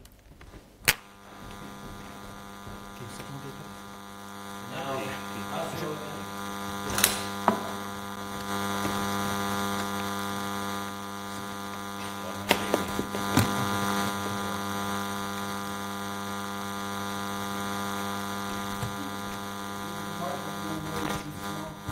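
Steady electrical mains hum with many overtones, coming through the lecture-hall PA microphone. It starts with a click about a second in and goes on unchanged, broken by a few sharp clicks of cable or equipment handling. It is ground-loop-type interference, which the speaker takes to be pickup from the laptop that has just been connected.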